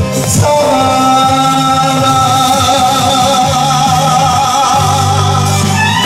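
A male singer holding one long note with vibrato through a handheld microphone, over a recorded backing track; the note ends just before the close, as the last note of a Korean trot song.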